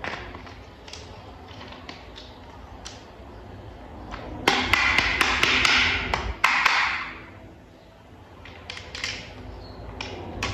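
Small plastic toy parts tapping and clicking as they are handled and fitted together. About halfway through comes a louder, noisy stretch of about two and a half seconds, with several sharp clicks in it.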